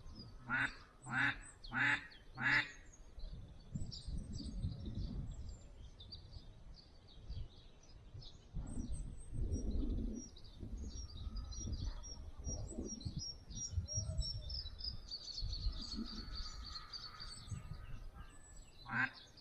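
Four loud mallard-hen quacks in quick succession about half a second apart, with one more near the end, over small birds chirping.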